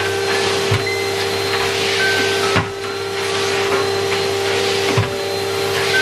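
Numatic Henry cylinder vacuum cleaner running with a steady hum and rush of suction as its floor tool is pushed back and forth over carpet. The level dips briefly with the strokes, and there are a few light knocks.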